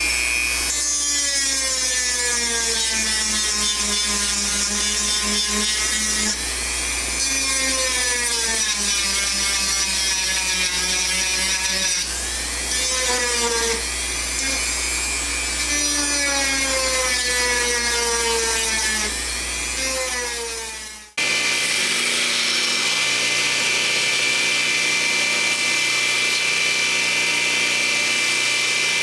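Power tool motor running while being worked against the knife, its pitch sagging and recovering every few seconds as the load changes. About two-thirds of the way in the sound cuts abruptly to a different machine running at a steady pitch with a constant high whine.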